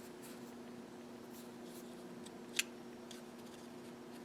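Faint handling of a micro SIM card being fitted into a smartwatch's SIM card holder, with one small sharp click about two and a half seconds in, over a steady low hum.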